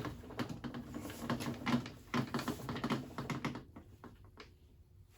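Rapid irregular clicking and rattling knocks as a table saw on a moving-dolly base is shifted into position, thinning out over the last second or so.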